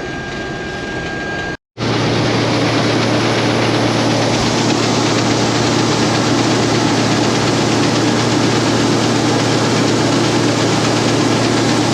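Case IH combine running steadily at harvest speed: a continuous diesel engine hum with machinery noise. The sound breaks off for an instant about one and a half seconds in, then comes back louder and steady.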